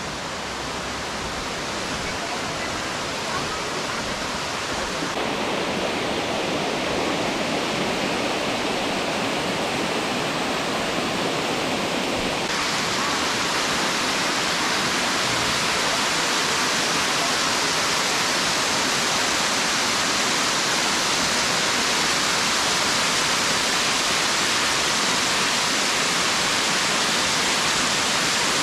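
Steady rush of falling water, like a waterfall, growing louder over the first dozen seconds and then holding steady.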